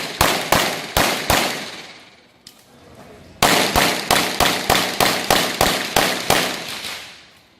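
Rapid gunfire on a shooting range: a few quick shots, a pause of about two seconds, then a string of about ten shots at roughly three a second, each with a short echo.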